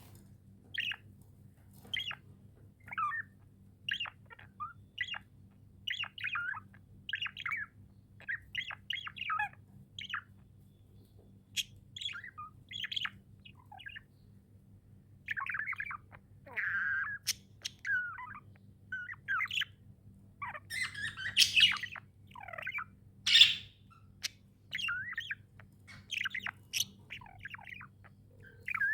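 Pet budgerigars chirping and warbling in short, high calls about once a second, with two louder, harsher squawks a little past the middle. A faint steady low hum runs underneath.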